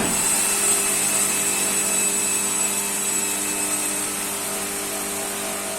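Hualian vacuum sealer's oil-lubricated vacuum pump kicking in with a sudden start, then running steadily with a low hum and a high whine. The whine fades about four seconds in as the machine pumps down.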